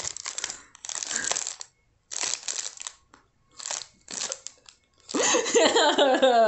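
Crinkly clear plastic packaging bag being crumpled and rustled in several separate bursts. About five seconds in, a woman breaks into loud laughter.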